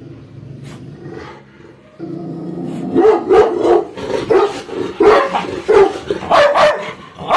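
Yellow Labrador retriever growling low and steadily, then from about three seconds in breaking into a rapid run of loud growling barks.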